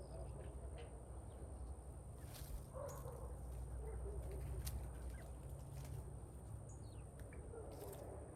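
Chickens clucking softly now and then, over a steady low rumble and a few faint clicks.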